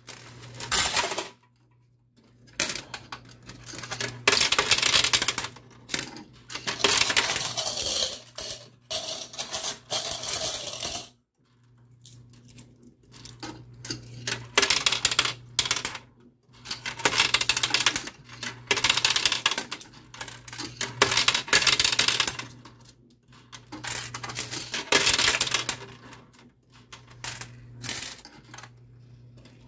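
Quarters clinking and sliding in a coin pusher arcade machine, in repeated bursts of a second or more with short pauses between. A steady low hum runs underneath.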